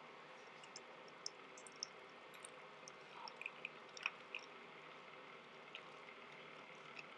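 Keurig K-Café brewer pouring a hot coffee shot in a thin stream onto ice in a glass: a faint steady machine hum with scattered small crackles and drips as the ice cracks under the hot coffee, and a sharper click about four seconds in.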